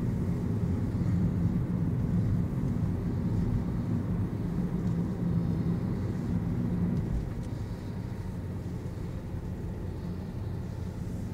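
Car engine and tyre noise heard from inside the cabin while driving: a steady low drone that drops a little about seven seconds in.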